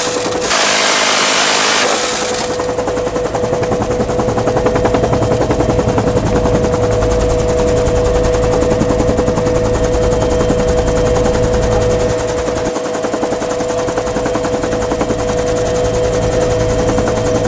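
Dillon Aero M134 minigun firing from the door of a UH-1 Huey: a burst broken by a short pause ends about two seconds in. The rest is the Huey's steady turbine whine and rotor rumble, with the minigun's rapid, fine-grained buzz of fire running on beneath them.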